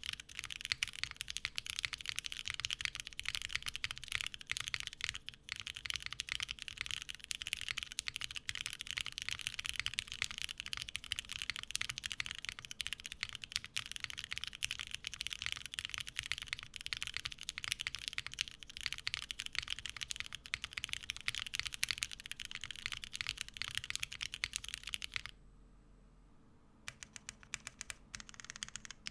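Fast, continuous typing on a Bowl Oblique mechanical keyboard with lubed linear Cherry MX Black Hyperglide switches, a gasket-mounted aluminium plate and GMK keycaps. The keypresses come as a dense, even stream of soft clicks. Near the end the typing stops briefly, then a few scattered keystrokes follow.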